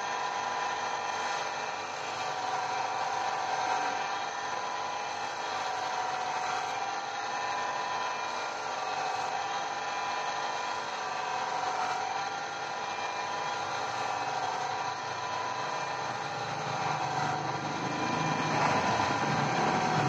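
Gemstone cutting machine running steadily with a motor whine while an agate stone on a dop stick is pressed against its small spinning wheel, the stone rasping on the wheel. The grinding grows louder and rougher near the end.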